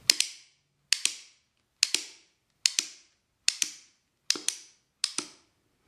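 3D-printed plastic M9 rubber band gun firing seven rubber bands one after another, a little under a second apart. Each shot is a sharp double click of the trigger and hammer mechanism snapping.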